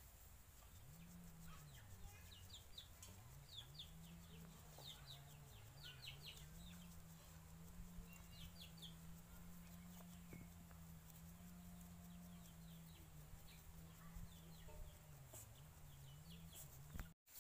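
Faint yard ambience: birds chirping in short quick clusters, with a faint low hum underneath.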